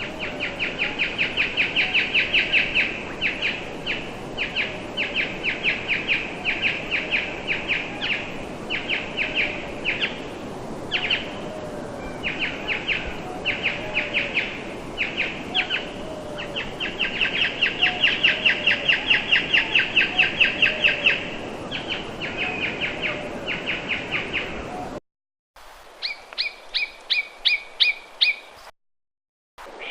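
Slowed-down nuthatch calls used as a speculative Sinosauropteryx call: long trills of rapid repeated notes, about ten a second, over steady outdoor background noise. Near the end the sound cuts out, and a different, slower series of paired notes follows before another short gap.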